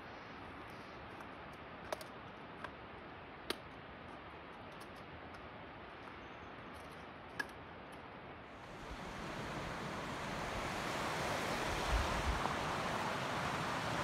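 Steady rush of a distant mountain waterfall, with a few light clicks in the first half. After about eight seconds the rush of water grows louder and fuller.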